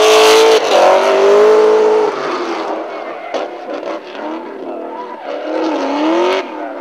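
Ford Mustang drift car's V8 revving hard, its pitch rising and falling with the throttle, while the rear tyres skid and squeal through a slide. Loudest in the first two seconds; the revs climb again near the end and cut off suddenly.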